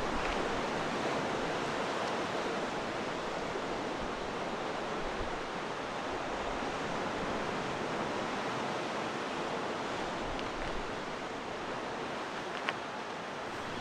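Sea surf washing steadily against the coast, with one short click near the end.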